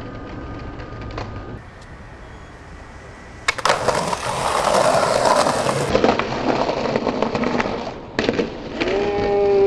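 Skateboard wheels rolling hard over a concrete sidewalk, starting about three and a half seconds in, with rattling clicks from the board. A sharp crack comes about eight seconds in as the board is snapped for a trick at the curb.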